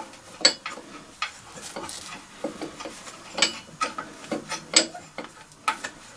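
Metal parts of a lawnmower's blade brake assembly clinking and knocking as they are handled and fitted by hand, a dozen or so sharp clicks, some with a short ring.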